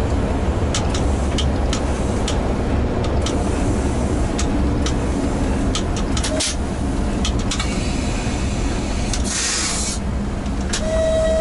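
ChS200 electric locomotive running, heard from its cab: a steady low rumble of the running gear with scattered sharp clicks. About nine seconds in comes a short burst of air hiss, and a brief steady tone sounds near the end.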